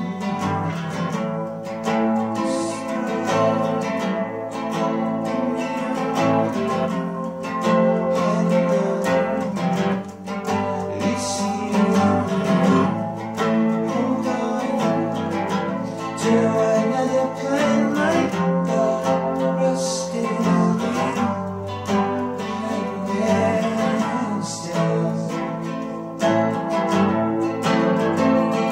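Acoustic guitar strummed and picked steadily, with a man's voice singing over it in places.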